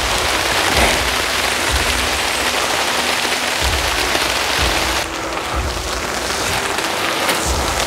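Steady rain falling on the woodland's leaves and leaf litter, an even hiss, with a few low thumps.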